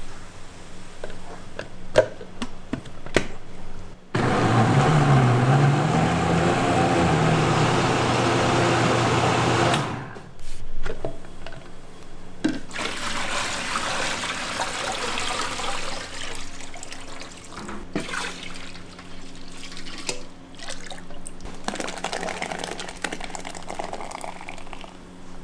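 Liquid splashing and pouring amid kitchen clatter, with a machine motor running loudly for about six seconds partway through, starting and stopping abruptly.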